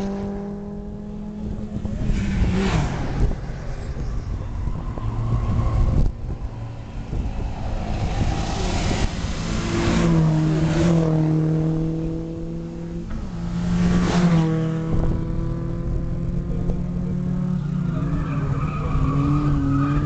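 Cars running hard on a race circuit, engines at high revs passing by several times, each pass swelling in loudness, with tyre squeal and skidding.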